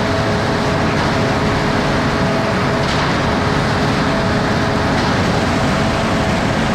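Concrete mixer truck running steadily with its drum turning to mix the load of concrete, which has just been wetted up for a slab pour. It is a steady, unbroken noise with a constant hum running through it.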